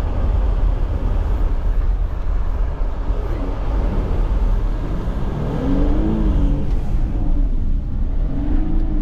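Jeep Gladiator driving through mud and standing water, heard from inside the cab: a steady low rumble of engine and tyres. About five and a half seconds in, and again near the end, the engine's pitch rises and falls briefly.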